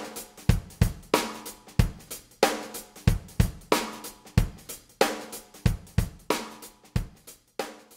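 Background music: a drum-kit beat of bass drum, snare and cymbals at a steady tempo of about one and a half beats a second, which stops just before the end.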